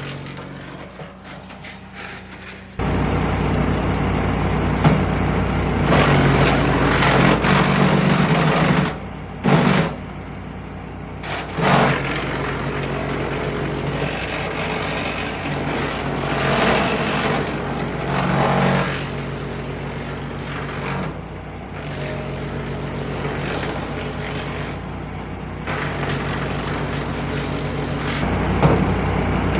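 MechMaxx P4205 wood chipper's small gas engine running steadily, with several louder, harsher surges over it. It is quieter for the first few seconds, then jumps up suddenly.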